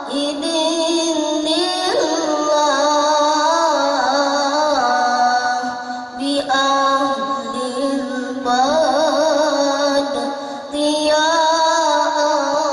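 A boy qari reciting the Quran in the melodic tilawah style through a microphone and loudspeaker. He holds long, ornamented notes with vibrato and takes short breaths about 6 and 11 seconds in.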